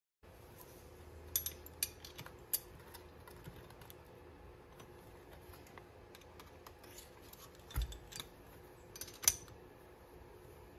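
Sharp metal clicks and clinks from handling a VW rocker arm shaft assembly with a small wrench and steel washers: a quick run of taps between one and three seconds in, then two louder clacks around eight and nine seconds in, over a faint steady hum.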